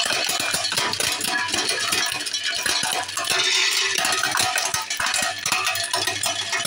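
Motor-driven hazelnut cracking machine running: a dense, continuous clatter of hazelnuts being cracked, and of nuts and shells falling into a plastic tub, over a steady low motor hum.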